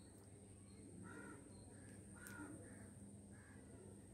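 Faint crow cawing: four short, harsh caws spread across a few seconds over a very quiet background.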